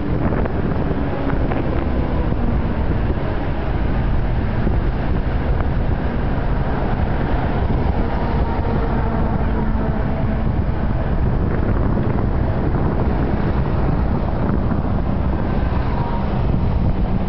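Wind rumbling on the microphone over steady road traffic, with an engine hum growing louder near the end.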